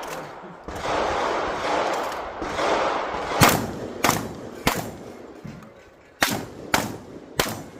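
12-gauge shotgun fired six times at steel targets, in two quick strings of three shots about 0.6 s apart, the first about three and a half seconds in and the second about six seconds in. A loud rushing noise fills the first three seconds.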